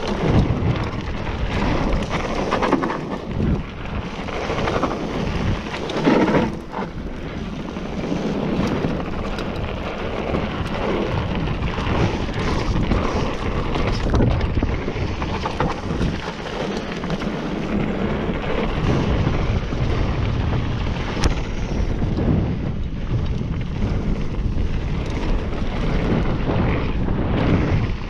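Mountain bike descending a rough dirt trail at speed: steady wind buffeting on the action-camera microphone, tyres rolling over dirt and rocks, and many short knocks and rattles as the bike hits bumps.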